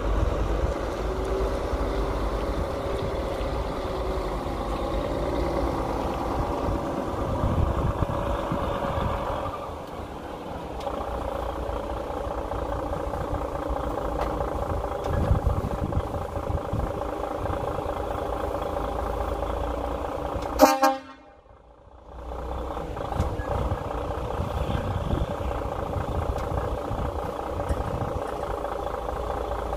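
Diesel engine of a DAF XF truck running at low revs as it manoeuvres a semi-trailer, with one very short horn toot about two-thirds of the way through, after which the sound cuts out for about a second.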